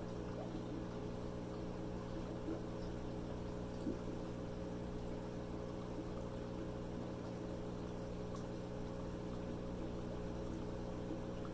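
Tetra Whisper 60 aquarium air pump running with a steady hum, its air stream bubbling up through water into an upturned quart container.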